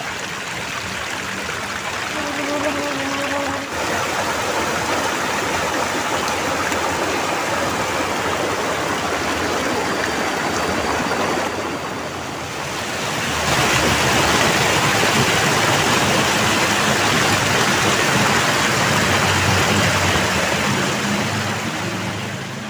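River water rushing over a weir and rocks, a steady full rush that steps up louder a little past halfway.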